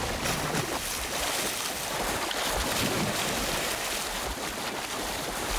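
Sea water splashing and rushing as a shark lunges through the surface, a steady, noisy wash of spray.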